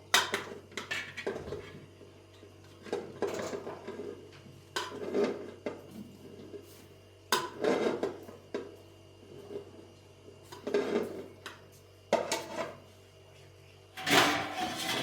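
Dishes and pots clattering and clinking as they are handled, in irregular knocks about every second or two, with a louder run of clatter near the end.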